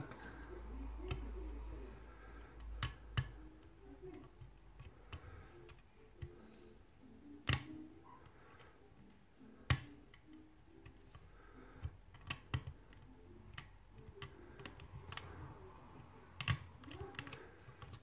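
Lock picking a brass mortise cylinder: a metal pick ticking and scraping against the pins under tension from a pry bar, giving scattered small metallic clicks, with a few louder clicks now and then.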